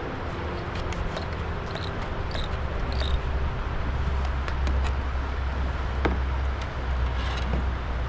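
Steady low wind rumble on the microphone over the hiss of river water, with scattered light clicks and ticks as a fishing reel is cranked and line is reeled in.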